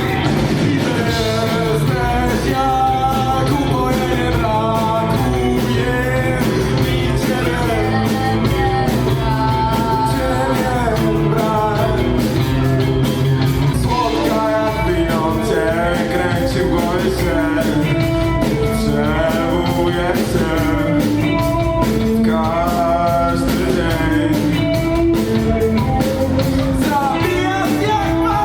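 Rock band playing a song with a singer and electric guitar, at an even volume throughout.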